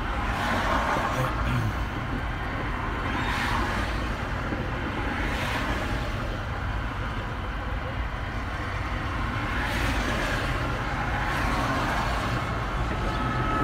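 Road traffic passing close by: a steady wash of car and truck tyre and engine noise, swelling as single vehicles go past now and then.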